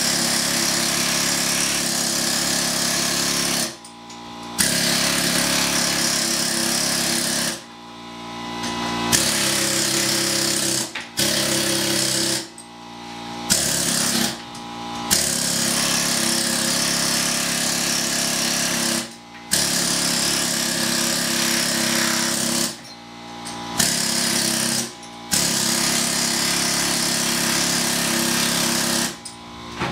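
Pneumatic medium-barrel air hammer with an angled scaling chisel hammering against a concrete block wall, chipping plaster off. It runs in long steady bursts, cut by short pauses several times.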